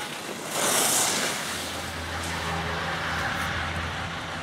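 Skis carving across packed snow, a loud hiss lasting under a second, followed by a steady low hum.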